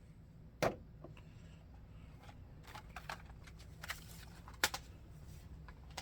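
Soft handling of a Blu-ray collector's box set's cardboard and paper contents: a few scattered light taps and clicks, with a sharper click about three-quarters of the way through.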